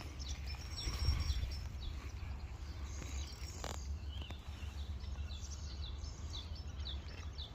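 Small birds chirping in short, high, falling notes, repeated many times, over a steady low rumble. There is one brief click a little past halfway.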